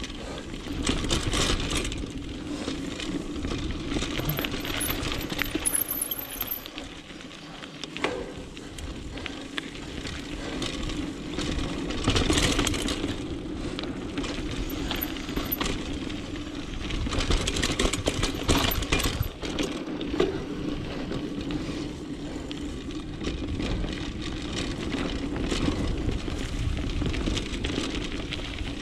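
Mountain bike rolling over a dirt singletrack: tyres running over dirt and dry leaves, with the chain and bike parts rattling and clinking over rough patches. The rattling is loudest about a second in, around twelve seconds in and between about seventeen and nineteen seconds in.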